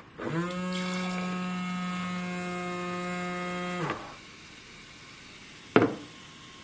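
Small electric pump in a homemade cardboard soda dispenser, switched on by its button: it spins up and runs with a steady hum for about four seconds, pumping cola into a glass, then cuts off. A single short knock follows near the end.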